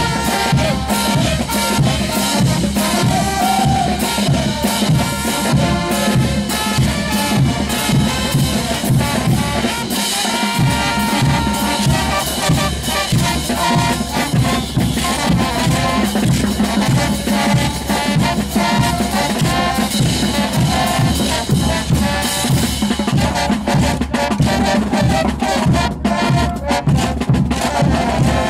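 Band music with drums: a steady bass-drum beat of about two strokes a second under a dense band sound, the bass dropping out briefly about ten seconds in.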